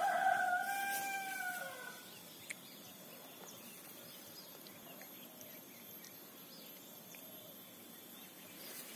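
A rooster crowing: one long call that drops in pitch as it ends, about two seconds in. After it, a faint steady outdoor background with a thin high tone.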